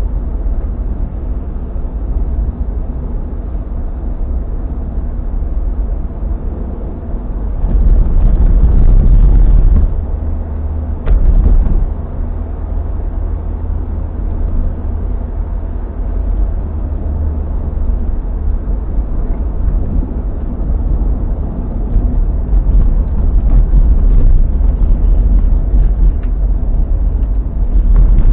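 Car driving along a road, heard inside the cabin: a steady low rumble of engine and tyres, swelling louder for a couple of seconds about eight seconds in and again briefly around eleven seconds.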